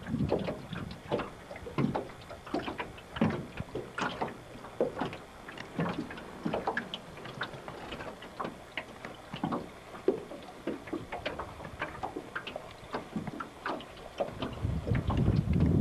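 Water slapping and lapping irregularly against a boat's hull, a few small splashes a second, with a low rumble swelling in near the end.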